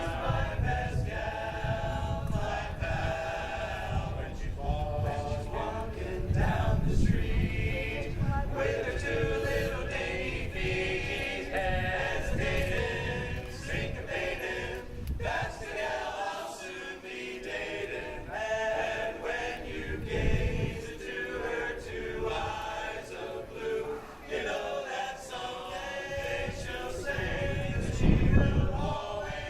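Men's a cappella chorus singing a song in close harmony, with no instruments.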